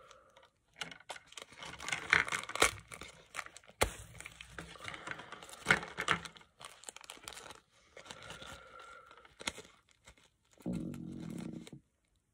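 Plastic and cardboard packaging of a small skirted fishing jig being torn open and crinkled by hand, in an irregular run of crackles with a few sharp snaps.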